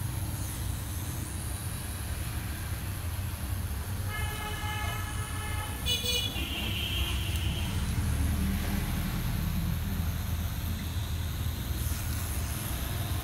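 A steady low hum, with a horn-like tone sounding for about two seconds near the middle, then a brief higher tone.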